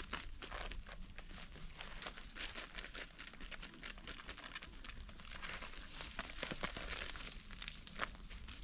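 Dense, irregular crunching and rustling of dry ground litter being stirred or stepped through, a quick run of small crackles.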